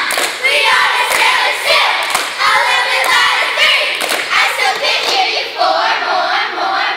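A group of young girls chanting a cheer in unison, with sharp claps marking the beat.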